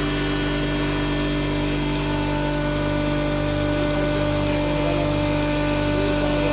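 A 7.5 HP stoneless double-chamber flour mill (atta chakki) running steadily while grinding maize. It makes a constant hum with several steady tones and no change in level.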